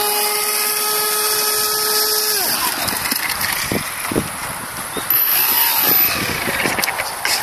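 Homemade RC airboat's electric motor and air propeller whining at a steady pitch, then winding down with a falling pitch about two and a half seconds in as the throttle is backed off. After that come water noise and a few scattered knocks.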